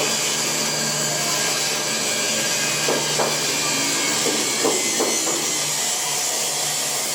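A workshop machine running steadily with an even whir and hiss, with a few soft knocks about three seconds in and again around four and a half to five seconds.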